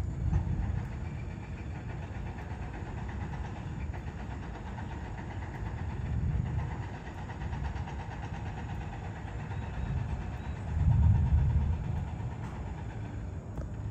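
Distant thunder rumbling low in slow swells, loudest near the end.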